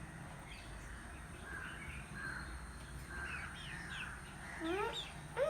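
Chicks peeping faintly, with a mother hen's calls: a few louder rising calls come near the end.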